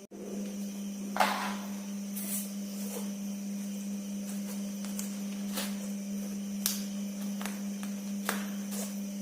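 Small electric motor of a battery-powered toy train running with a steady hum and a faint high whine, with irregular clicks and ticks, the loudest about a second in.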